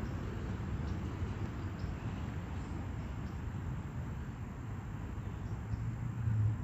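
Steady low rumble of road traffic, swelling briefly near the end as a vehicle passes, with a few faint high ticks over it.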